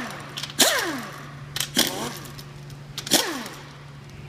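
Pneumatic wrench with a 13 mm socket run in two short bursts, undoing bolts on a GM 400 transmission; each burst whines down in pitch when the trigger is let go. A couple of sharp metal clicks come between the bursts.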